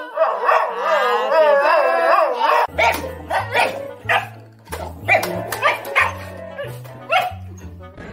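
A dog howling, its pitch wavering up and down. About three seconds in this gives way to a dog barking in short sharp barks, about a dozen, over music whose low bass notes step from one pitch to another.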